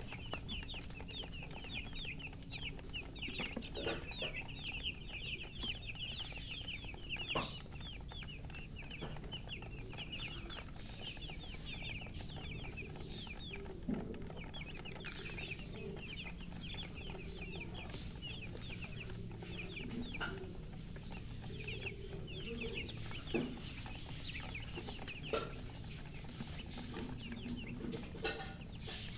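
A group of baby chicks peeping without pause, a dense stream of short, high, falling chirps, with some lower notes in the middle and a few sharp clicks that stand out as the loudest moments.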